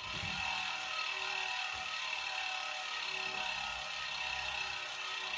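Ratchet-type freehub of an Elitewheels Edge 50mm carbon bicycle wheel, with steel bearings, freewheeling: the ratchet clicks run together into a steady, high buzz that starts suddenly.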